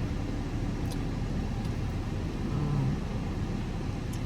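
Steady low rumble of a car, heard from inside the cabin, with a couple of faint ticks.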